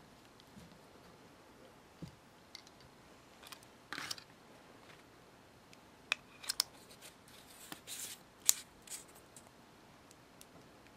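Faint, scattered light clicks and short scrapes of small plastic items being handled, with a cluster of them in the second half, as the plastic nail-tip practice wheel and painting supplies are moved about.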